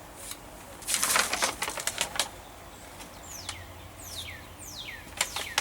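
A burst of rustling about a second in, then several quick whistled bird calls, each sliding down in pitch.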